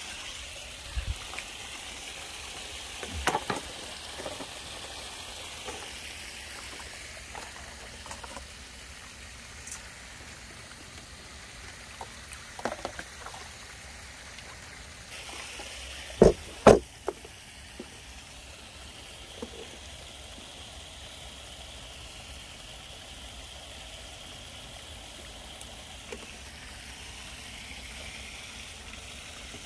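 Steady splashing rush of water from a homemade venturi dredge nozzle, driven by a 12 V 1100 GPH bilge pump, with a few sharp knocks from handling the rig, the two loudest about sixteen seconds in.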